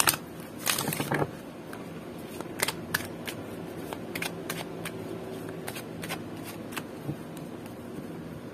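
A deck of oracle cards being shuffled by hand: a dense rush of flicking card edges in the first second or so, then scattered light clicks and taps of the cards.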